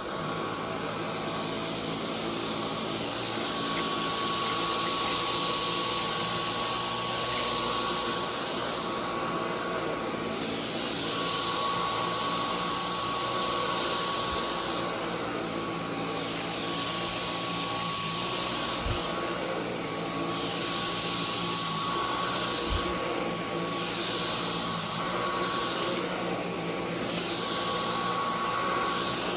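Dyson V10 Animal cordless stick vacuum running, a steady high whine over the rush of air, swelling and easing every few seconds as it works over carpet thick with pet hair and dirt.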